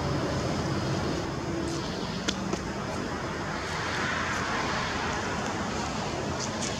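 Steady background rumble and hiss, with a single faint click about two seconds in.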